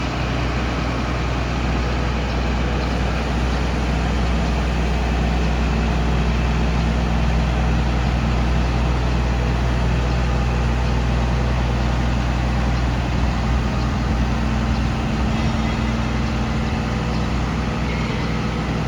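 Drilling rig's engine running steadily, a constant low drone with noise over it.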